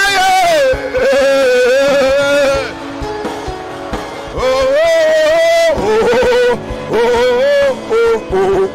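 Gospel worship music: a wordless lead melody in long held, wavering phrases over band accompaniment, pausing briefly about three seconds in.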